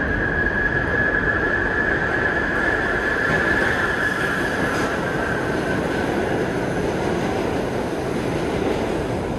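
R33 subway train running along the track, a steady rumble of wheels and motors. A high-pitched whine sounds over it at first, then fades and drops a little in pitch over the first half.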